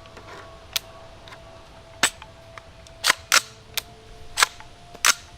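Sharp metallic clicks, about seven at uneven intervals, from a frozen rifle's trigger and action being worked without the gun firing: a misfire that the shooter puts down to a frozen firing pin.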